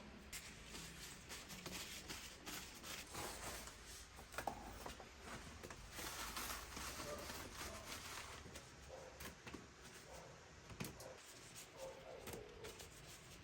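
Faint handling noises: light rustling with scattered small clicks and knocks as household items are moved about.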